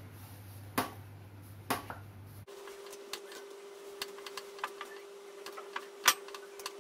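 Hand kneading soft flour dough in a bowl, with scattered light clicks and taps against the bowl. The two sharper knocks come in the first two seconds. A faint steady hum runs underneath and changes pitch about two and a half seconds in.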